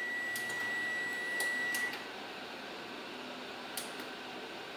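Electronic beeper sounding one steady high tone that cuts off about two seconds in, followed by a few faint clicks.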